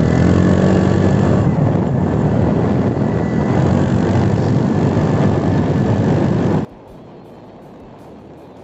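Heavy wind rushing over a phone microphone, mixed with the engine of a motorbike ridden at high speed. About two-thirds of the way through it cuts off suddenly, leaving only a faint steady hiss.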